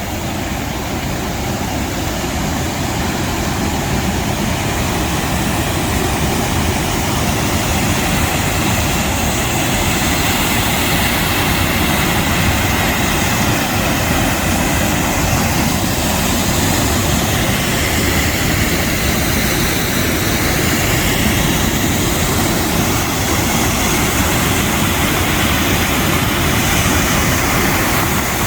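Steady rushing of river water at the falls and rapids, growing slightly louder over the first several seconds.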